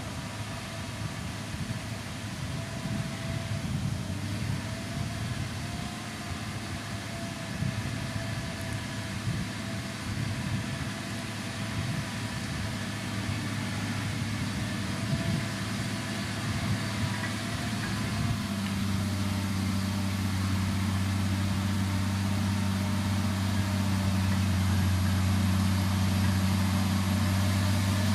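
Diesel engines of heavy road-building machinery running steadily. About two-thirds of the way through, a strong, steady low hum sets in and the sound grows a little louder.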